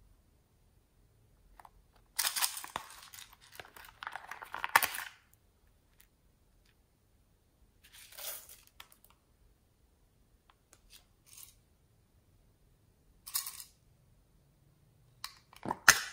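Small plastic toys handled by hand, with crackly rustling and clicking in separate bursts. The longest runs from about two to five seconds in, shorter ones come near eight and thirteen seconds, and a sharp clatter comes near the end.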